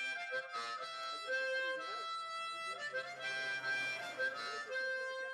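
Harmonica played by hand, a slow tune of held chords that change every second or so.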